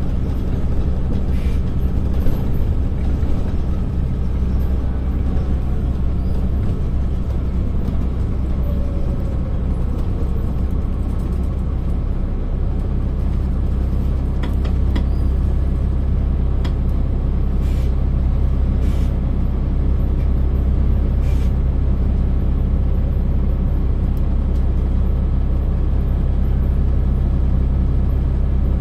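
Volvo D10A-285 diesel engine of a Volvo Super Olympian double-decker bus, heard from the upper deck, running as the bus slows with a faint whine falling in pitch, then idling steadily while stopped. Several short sharp air hisses from the brakes come through the idle.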